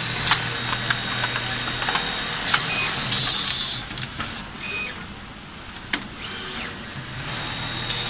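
Automatic pocket-welting (pocket canter) sewing machine at work: a steady low machine hum with sharp clicks and short bursts of high air hiss, about a second long, two-thirds of a second in, around three seconds in and near the end.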